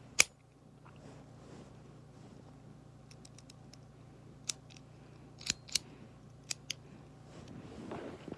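Sharp clicks from small hard parts being handled: one loud click right at the start, then a scattering of lighter clicks about four and a half to seven seconds in, with rustling handling noise building near the end.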